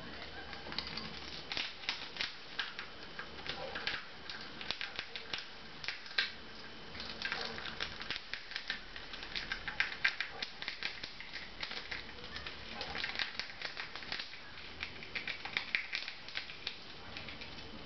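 A chipmunk gnawing and nibbling a piece of food held in its paws: a rapid, irregular run of tiny sharp clicks and crunches.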